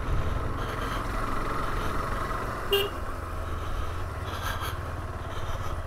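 KTM 390 Adventure's single-cylinder engine running steadily as the bike rolls slowly over a rough dirt track, with road and wind noise. There is one short beep about three seconds in.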